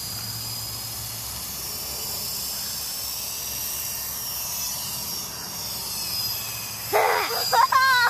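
Double Horse 9053 radio-controlled helicopter in flight, its small electric motors and rotors giving a steady high whine. Near the end a loud high-pitched vocal cry breaks in and slides down in pitch.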